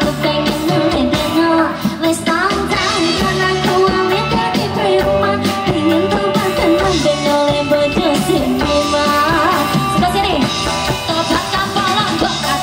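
Band music with a singer: a pop-rock song playing steadily.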